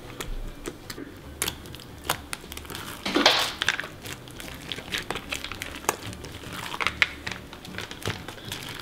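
Orange slime with elbow macaroni mixed through it being poked, squeezed and kneaded by hand, giving many small sticky clicks and crackles, with a louder squish about three seconds in.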